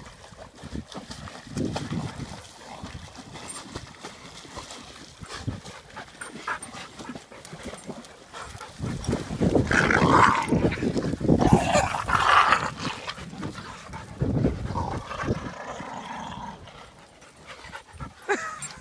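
Dogs whimpering and panting as they tussle over a stick, loudest from about nine to thirteen seconds in.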